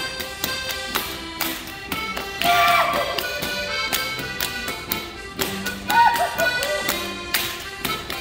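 Traditional Bavarian folk dance music with a lively beat, with many sharp claps and shoe taps from the dancers. Two high swooping calls stand out, about two and a half and six seconds in.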